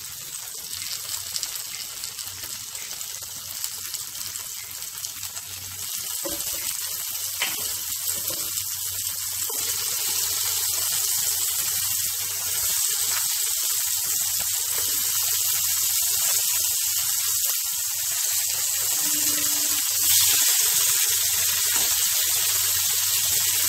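Marinated chicken pieces sizzling in hot butter and oil in a frying pan, the sizzle growing louder in steps as more pieces go in.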